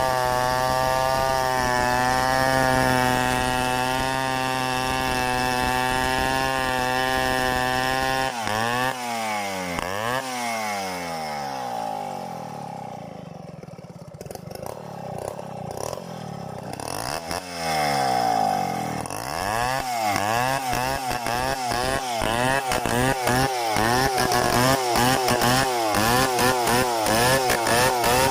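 Stihl 070 two-stroke chainsaw running at a steady engine pitch under load for about eight seconds. After that its note swings up and down over and over, dips quieter in the middle, then grows loud again near the end.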